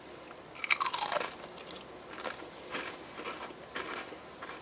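A Pringles Ranch potato crisp being bitten and chewed: one loud crunch about a second in, then softer crunches of chewing about twice a second.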